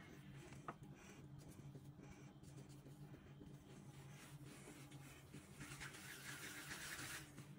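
Near silence: faint room hum, with a soft scratchy rustle lasting about a second and a half near the end.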